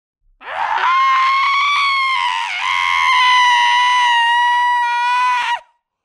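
A person's long, high-pitched scream held for about five seconds, with a brief dip in pitch about halfway through, then cutting off sharply.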